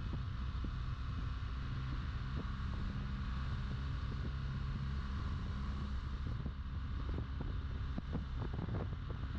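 BMW R1200GS motorcycle on the move: steady engine and road noise with wind buffeting the microphone.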